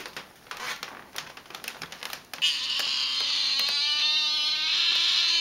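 Tonkinese cat giving one long, loud, drawn-out meow that starts about halfway in, after a few light taps.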